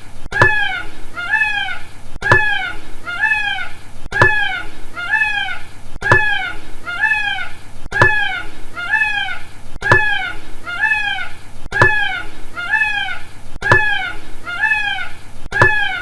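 Peacock calling: three loud, wailing rising-and-falling cries about half a second apart, each group opening with a short knock. The group repeats about every two seconds as a loop.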